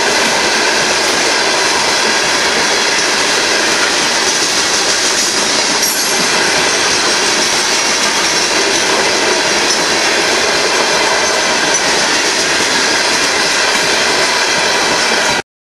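Freight cars of a Union Pacific gravel train rolling past at speed: a steady, loud rush of steel wheels on rail. It cuts off suddenly near the end.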